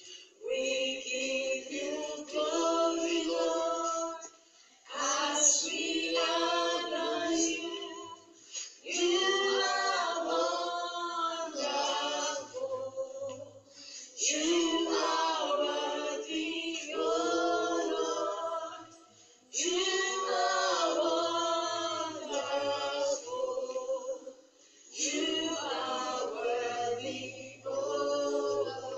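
Group of voices singing a song in phrases a few seconds long, with short pauses between them.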